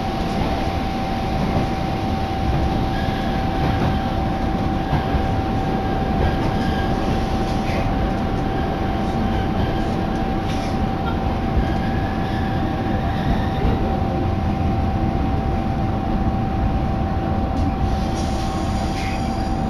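Cabin noise of a diesel railcar under way: a steady low rumble from the engine and the wheels on the track, with a steady whine running through it.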